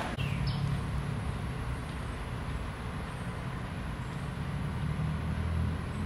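Steady low rumble of road traffic, with a low hum that grows a little stronger near the end.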